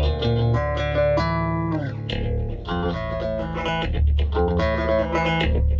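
Multiscale Mayones bass in a low alternate tuning, played through an Origin Effects Cali76 compressor and a Darkglass bass pedal together: a run of plucked single notes with a strong low end, one note sliding down in pitch about two seconds in.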